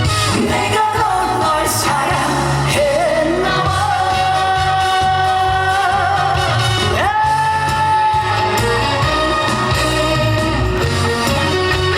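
A man singing a trot song live over loud band accompaniment, holding a long note and then sliding up into a second long note about seven seconds in.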